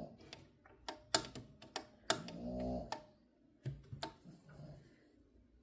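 Scattered sharp clicks and knocks from handling a Hamilton sewing machine's knobs and parts, about eight of them at irregular intervals, with no running of the machine.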